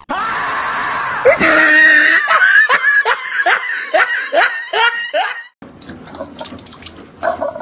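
A person laughing in a quick run of repeated ha-ha bursts for about four seconds, after a second of steady hiss.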